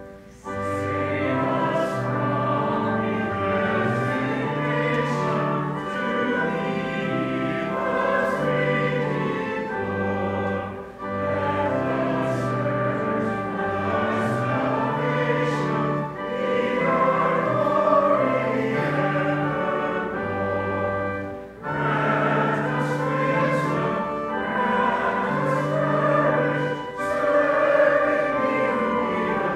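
Congregation singing a hymn with pipe organ accompaniment, the organ's chords held steady under the voices and short breaks between the sung lines.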